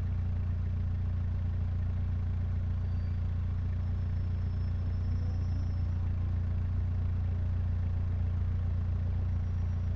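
Mitsubishi Lancer Evolution X's turbocharged 2.0-litre four-cylinder engine idling steadily, with a constant low hum and no revs.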